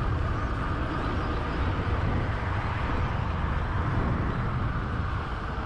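Steady wind rush over the microphone with road noise from a moving bicycle, mostly a low rumble with a hiss on top.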